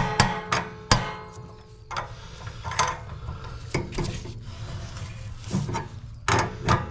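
Hand tools clanking and knocking on metal fittings: a series of sharp knocks, the loudest right at the start and about a second in, the first followed by a brief metallic ring.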